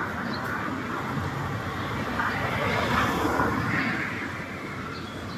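City street ambience: a steady wash of traffic with indistinct voices.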